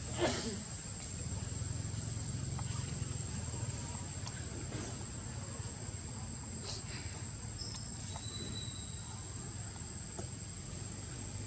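Steady high-pitched insect drone, with a low rumble underneath and one brief sharp sound just after the start.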